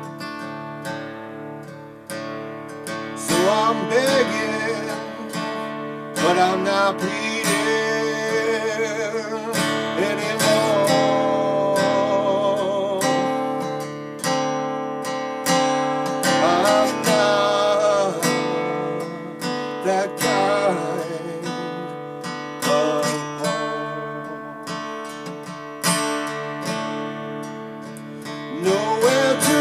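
Acoustic guitar played through an instrumental passage of a blues-rock song, strummed chords with a loose, uneven pulse.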